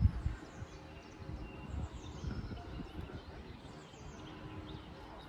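Quiet outdoor ambience with faint bird chirps scattered through it over a low steady background hum.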